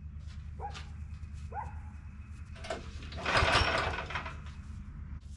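Small gasoline engine of a bandsaw sawmill idling steadily with the blade clutch disengaged. About a second in there are two short rising squeaks, and around three and a half seconds a brief, louder rush of noise.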